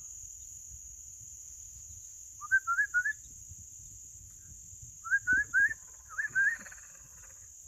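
Ducklings peeping: short, rising, high peeps in three quick runs of three or four, with a steady high insect drone behind them.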